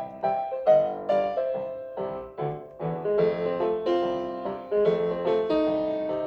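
Background piano music: a steady run of struck notes and chords, each one dying away.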